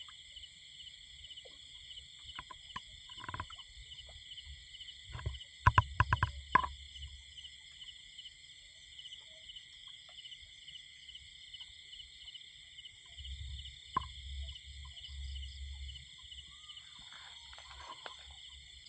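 A steady, shrill chorus of night insects with a fast pulsing trill. About six seconds in, a quick run of four or five sharp clicks cuts through it, with a single click later on.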